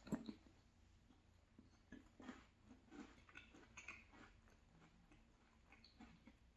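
Faint close-up chewing and mouth sounds: soft wet smacks and clicks while a bite of creamy salmon pie is eaten, with a soft thud right at the start.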